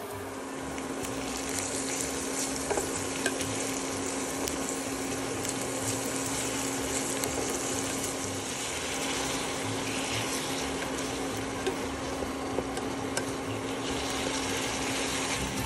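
Chopped red onion and garlic sizzling as they sauté in oil in a pan while being stirred, with scattered light clicks of the utensil against the pan. A steady low hum runs underneath.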